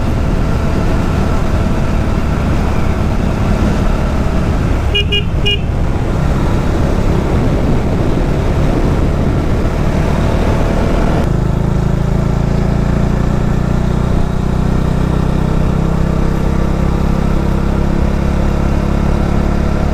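Motorcycle engine running at road speed with wind rush, the engine note shifting about eleven seconds in. About five seconds in, three short horn beeps.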